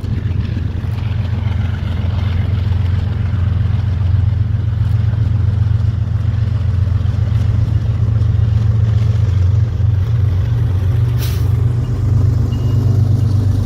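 Freight train passing close by: a loud, steady low rumble, with one sharp clank about eleven seconds in and a faint thin squeal near the end.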